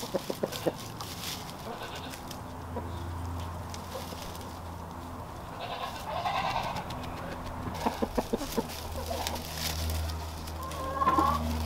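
A hoarse, bleat-like farm-animal call about six seconds in, a shorter rising call near the end, and a steady low hum underneath in two stretches.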